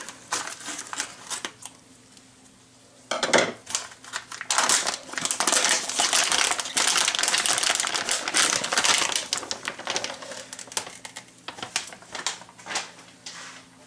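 Plastic vacuum-sealer bag crinkling and rustling as it is opened and peeled off a raw prime rib roast, with a sharp crackle about three seconds in and the loudest, denser crinkling for several seconds after it, tailing off into scattered rustles.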